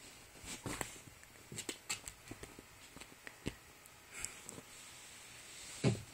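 Light rustling and scattered soft taps of a hand and cat paws moving over a knit blanket during play, with one louder dull thump near the end.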